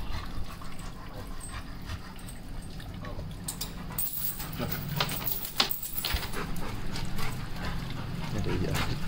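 A Labrador retriever whimpering and panting, with a few sharp clicks and rattles around the middle.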